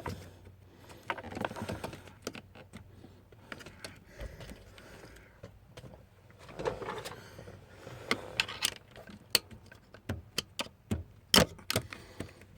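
Pliers and metal tools clicking and scraping against a steering-column bolt as it is worked loose: an irregular string of sharp metallic clicks and taps, the loudest near the end.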